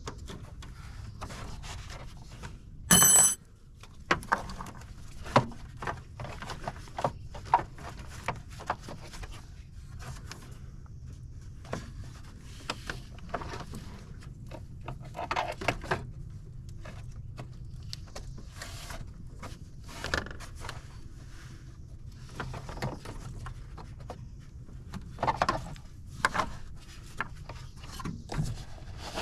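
Metal hand tools clicking, knocking and scraping as wiring is loosened and unhooked in the engine bay, with one loud, short ringing clank about three seconds in, over a steady low hum.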